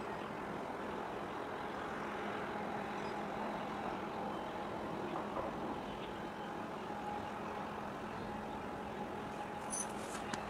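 Steady harbour background: the even rumble and hum of distant engines and port machinery across the water, with a couple of faint high chirps near the end.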